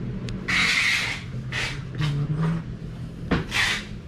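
Several short bursts of rustling handling noise and a single sharp click a little past three seconds in, over a steady low hum.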